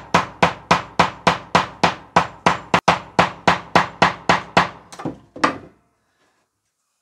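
Hammer striking the end of a wood chisel in a steady run of about three blows a second, stopping shortly before the end, splitting out the plug of a hole-saw cut in thick board siding.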